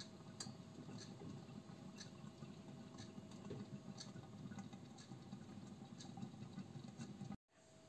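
Faint simmering of meatballs stewing in tomato and sour-cream sauce under a lid: soft, irregular little pops and ticks of bubbling.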